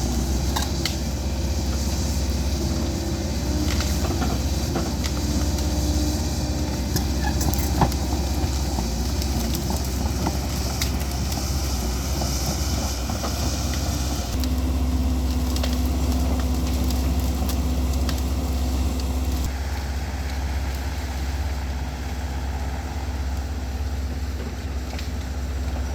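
Hidromek construction machine's diesel engine running steadily under work, its engine note shifting about 14 seconds in, with scattered clicks and clanks.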